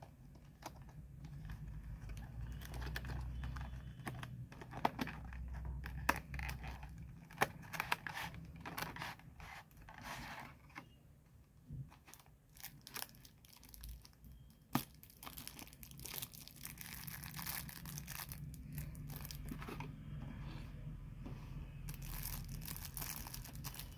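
Cardboard retail box and plastic packaging handled and opened by hand: scrapes, taps and clicks as the box and its plastic tray are opened, then a longer stretch of plastic crinkling in the second half as the pen is lifted out of its wrapping.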